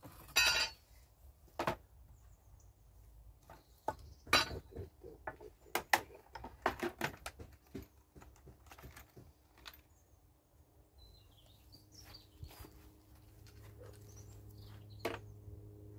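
Clattering and knocking of tools and small hard items being rummaged through in search of something, a string of sharp clicks through the first half. A few faint bird chirps follow, and a low steady hum comes in near the end.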